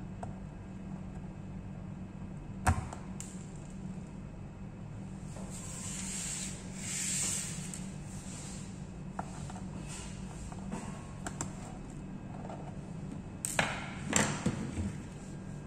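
Small clicks and a brief scrape from handling and opening a laptop's plastic case, with one sharp click early on and a cluster of clicks near the end, over a steady low hum.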